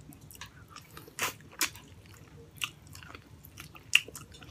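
Close-miked eating of braised pork hock by hand: wet chewing and mouth smacks with scattered sharp clicks, the loudest about four seconds in.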